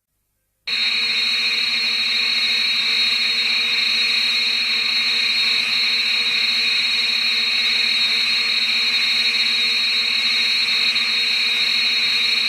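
Steady mechanical-electronic drone from a Showa-era MechaGodzilla sound effect. It cuts in abruptly about a second in and holds level, with a buzzing high whine over a low hum and hiss.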